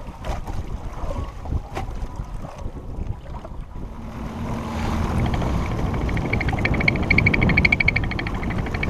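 Wind buffeting the microphone and choppy water slapping around a small fishing boat, with a couple of sharp knocks in the first two seconds. From about five seconds in, the noise grows louder and a fast, even ticking rattle joins it.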